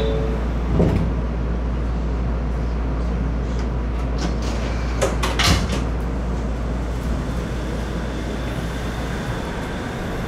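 Shonan Monorail suspended monorail train heard from the cab: a steady low hum with a few sharp clicks and knocks, about a second in and again around five seconds in, as the train begins to pull away.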